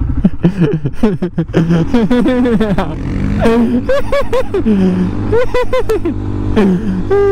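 A quad bike's engine running with a steady low rumble while riding in traffic, under a rider's voice sounds that come in short stretches without clear words.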